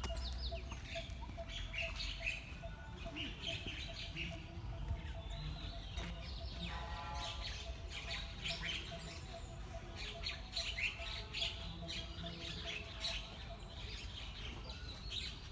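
Birds chirping and calling, many short quick chirps throughout, over a low rumble.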